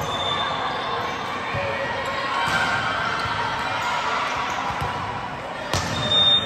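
Volleyball gym ambience: crowd chatter and calls echoing in the hall, with one sharp ball hit about six seconds in. A thin, shrill, steady tone sounds near the start and again just after the hit.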